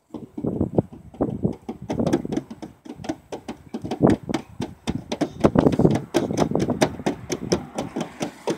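Hands slapping and tapping on the side of a car, an irregular run of quick taps, several a second.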